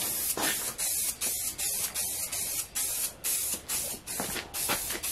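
Aerosol spray can hissing in short, rapid bursts, about three a second, as a coat is sprayed on.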